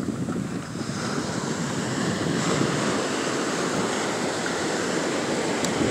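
Ocean surf: small waves breaking and washing up the beach in a steady rushing noise.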